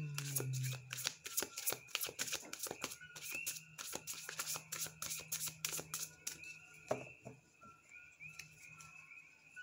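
A deck of tarot cards being shuffled by hand, overhand, giving a fast, uneven run of card clicks and slaps.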